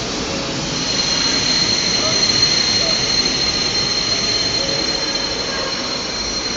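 Bombardier Talent 2 (class 442) electric multiple unit running over curved station track, with a steady high-pitched wheel squeal setting in about a second in over the train's running noise.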